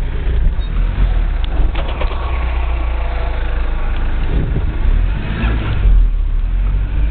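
Four-wheel-drive vehicle driving a rough dirt track: a steady heavy low rumble of engine and drivetrain, with a few scattered knocks.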